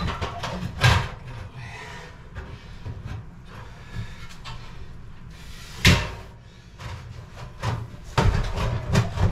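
Clunks and knocks of a vintage stove being shifted and worked into its cabinet opening, with softer handling noise between. There is one knock about a second in, the loudest about six seconds in, and a quick cluster near the end.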